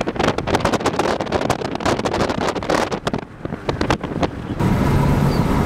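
Gusty wind buffeting the microphone in loud, irregular crackles, with a short lull about three seconds in. Near the end the sound cuts abruptly to a steadier rumble with a low hum.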